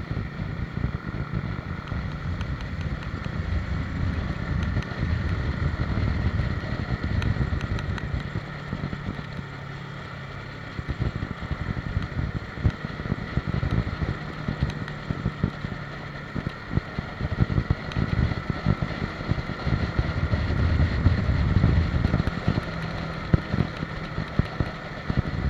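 Motorcycle running on the move, with wind buffeting the microphone; the sound swells and eases several times.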